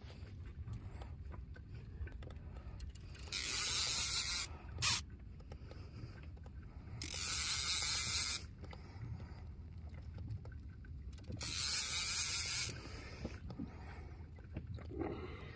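Baitcasting fishing reel whirring in three bursts of a second or so, about three, seven and eleven seconds in, while a hooked fish is played from the boat. A low steady rumble runs underneath, and there is one sharp click about five seconds in.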